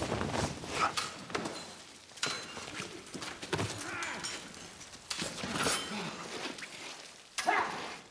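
Close sword-fight scuffle: footsteps, bodies and clothing struggling, and repeated knocks, with strained grunts of effort and a loud grunt near the end.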